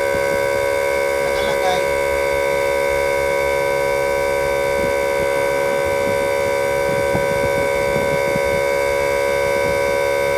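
Portable 12-volt tyre-inflator air compressor running steadily with an even whine, pumping up a car tyre after a puncture-sealant repair.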